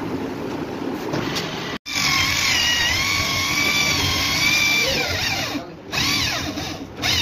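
Handheld electric drill boring into a wooden frame: a steady high whine that winds down with a falling pitch about five seconds in, then a second short run that winds down again near the end. The first two seconds hold only a low, steady noise.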